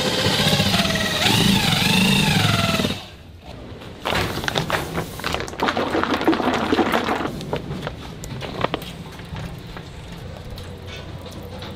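Handheld electric drill mixer whirring through thick batter in a steel pot, its pitch wavering under the load, stopping about three seconds in. After that come rustling, clicks and knocks as a plastic sauce pouch is handled and squeezed out into a steel pot.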